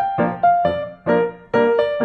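Background music: a melody of short piano-like keyboard notes.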